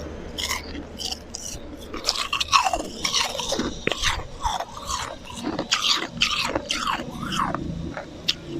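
Close-miked chewing and crunching of slushy ice in the mouth: a quick, irregular run of crisp crunches, busiest in the middle.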